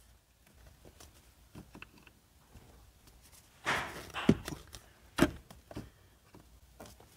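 Scattered plastic clicks and knocks from a screwdriver working the clip of a 2016 Honda Civic's sun visor mount, which is not releasing. There is a short scrape a little past halfway, then two sharp knocks about a second apart.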